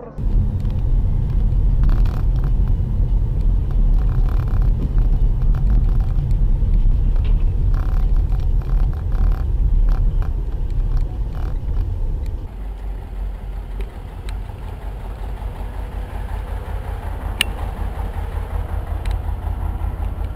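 Low, steady rumble of a car on the move, picked up by a dashboard camera inside the cabin. About twelve seconds in it drops to a quieter rumble.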